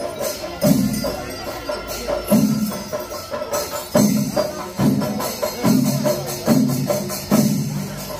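Festival procession percussion: loud drums struck in a repeating pattern of heavy strokes, coming faster after about four seconds, over a constant clatter of cymbals.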